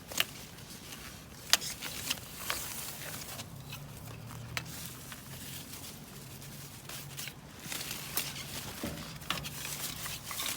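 Rustling in a hedge with scattered sharp clicks and snaps as litter and dog poo bags are pulled out of the bush, over a faint steady low hum.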